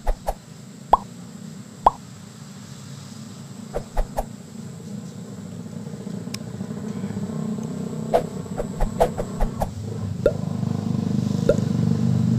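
Distant motor vehicle running, its low hum growing slowly louder, with scattered short clicks and pops over it.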